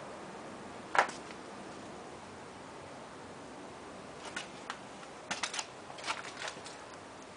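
Sharp clicks and taps over a steady hiss: one loud click about a second in, then a quick run of smaller clicks in the second half; no engine is running.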